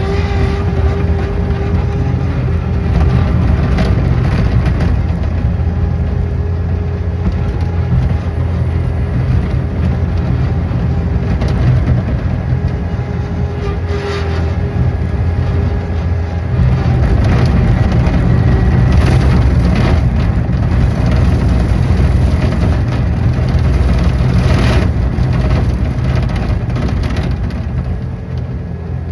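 An engine running steadily under load, with a few sharp knocks or crunches along the way.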